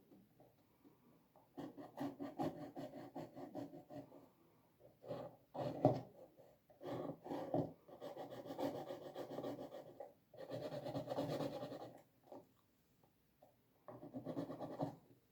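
A pen drawing on paper, scratching in several bursts of strokes with short pauses between them as a flower is sketched.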